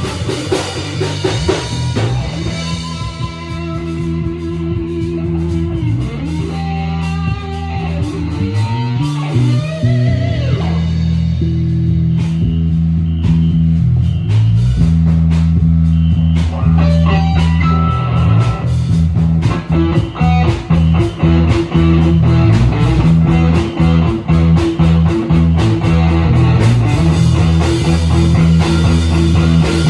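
Instrumental rock jam on electric guitar, bass guitar and drum kit, with the bass holding steady low notes under the guitar. The guitar slides between notes about ten seconds in, and the drumming grows busier and louder from about twenty seconds in.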